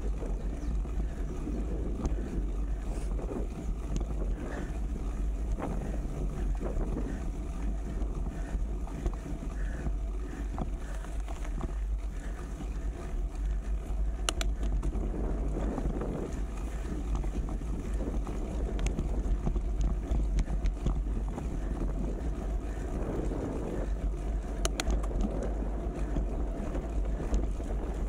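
Wind buffeting the microphone: a steady low rumble under a continuous rushing noise, with a few sharp clicks scattered through.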